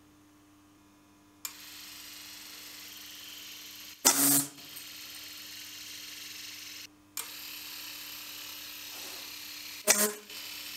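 Small electric motor spinning the six-barrel cocktail-stick minigun with a steady high whir, switched on about a second and a half in, cut briefly around seven seconds, then running again at full speed. Twice, about four and ten seconds in, a short loud burst as a volley of cocktail sticks is shot out and hits the cardboard target.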